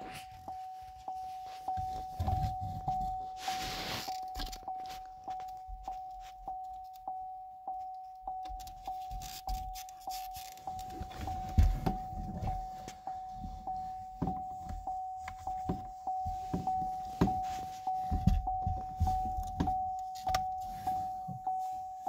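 Chevy Cruze's warning chime dinging steadily on one pitch, about twice a second. Under it, the plastic brake-light housing and its wiring knock and rustle as they are handled.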